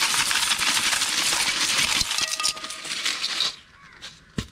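Boiled beach clams being tipped into a steamer pot to drain off their cooking water. Their shells clatter against each other and the pot in a dense rattle that stops about three and a half seconds in, followed by a single knock near the end.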